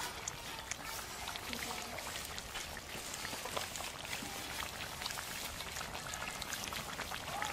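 Tomato and fish curry simmering in a karahi over a wood fire: a steady crackling and popping of bubbling liquid with many small pops.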